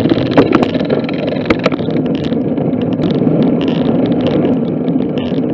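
Steady wind noise on the microphone and tyre rumble from a road bike riding along, with a few sharp clicks and knocks in the first two seconds.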